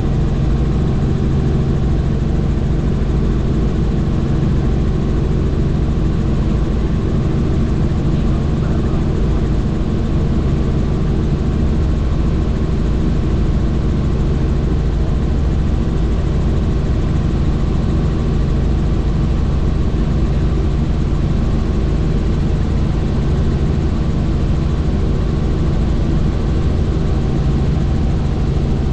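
Helicopter in flight: the steady, loud drone of rotor and engine, a constant low hum with a few unchanging tones.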